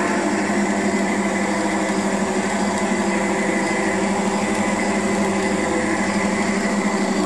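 G-scale model SD45 diesel locomotives running on garden-railway track, giving a steady mechanical drone with a constant pitch and a higher whine over it.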